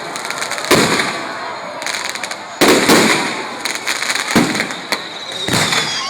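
Fireworks display: aerial shells bursting with loud bangs, about five in six seconds, with crackling between the bursts.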